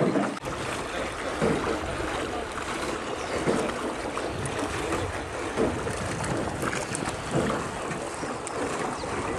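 Water swishing and lapping around a small rowboat, with a louder splash swell roughly every two seconds as the oars dip. Wind rumbles on the microphone underneath.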